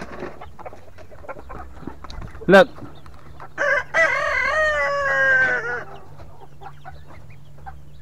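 A rooster crowing once, about four seconds in: a short first note, then a long held note of nearly two seconds that falls in pitch at the end. Faint clucking from chickens runs underneath.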